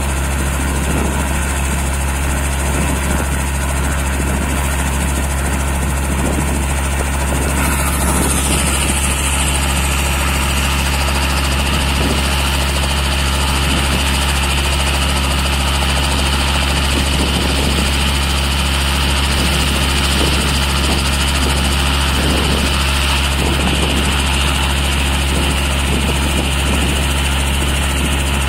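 Robinson R22 helicopter running on the ground with its four-cylinder piston engine and main rotor turning, a steady drone. A higher whine joins about a third of the way in and holds.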